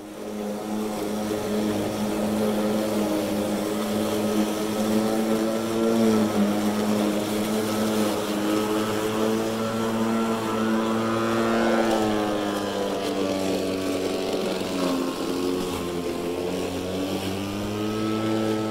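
Kobalt 80V cordless electric lawn mower running and cutting grass: a steady motor-and-blade hum with a whirring whine over the rush of cut grass, its pitch dipping briefly and recovering a few times.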